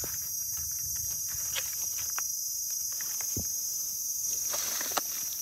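A steady high-pitched insect chorus, with scattered crackles and rustles of dry leaves as mushrooms are picked from the leaf litter.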